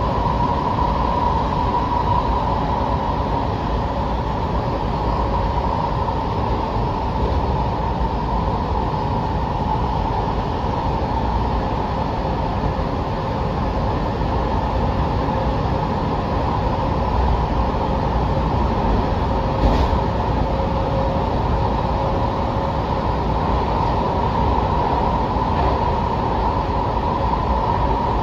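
Washington Metro 6000-series railcar running along the track, heard from inside the car: a steady rumble of wheels and running gear with a steady mid-pitched whine over it. One sharp click about twenty seconds in.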